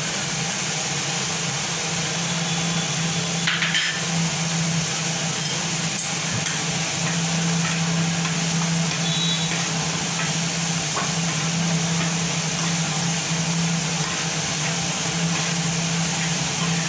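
Onion-and-spice masala frying in oil in a steel pan on a gas stove, stirred and scraped with a spatula, over a steady motor-like hum and hiss. One sharp knock sounds about three and a half seconds in.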